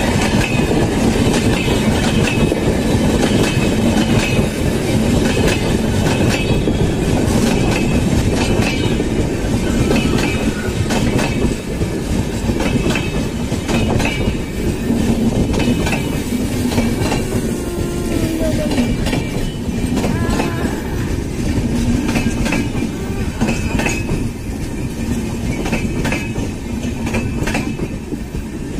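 LHB passenger coaches of an express train rolling past at speed: a steady rumble of steel wheels on rail with repeated clickety-clack over the rail joints and a thin wheel squeal now and then, easing slightly near the end.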